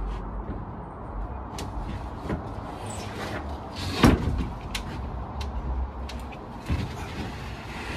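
A series of scattered clicks and knocks over a low rumble, with one louder bang about four seconds in.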